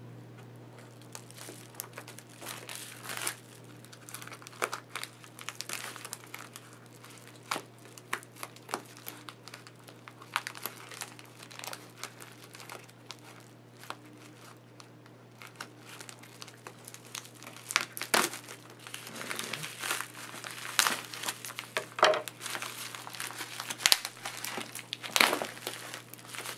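Thick padded plastic Priority Mail envelope crinkling and crackling as it is cut open with scissors and handled, in many short sharp bursts that grow louder and busier in the last third.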